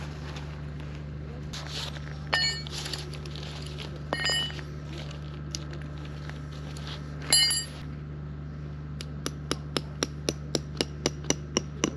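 Metal tent stakes clinking with a short ringing tone three times as they are handled. About nine seconds in, a tent stake starts being hammered into the ground with quick, even blows, about four a second.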